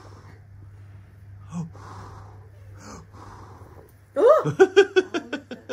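A few soft breathy puffs, then about four seconds in a toddler bursts into laughter, a quick run of short giggles.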